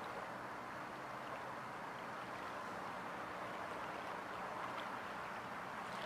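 Small waves lapping gently at the lake's edge: a steady soft wash of water with a few faint ticks and splashes.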